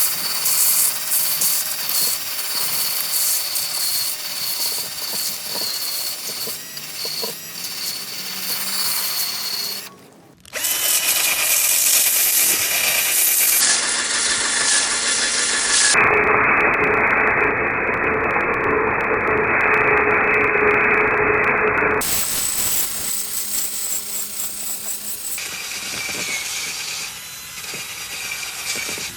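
A power tool running steadily with a high whine. The sound changes abruptly several times and drops out briefly about ten seconds in.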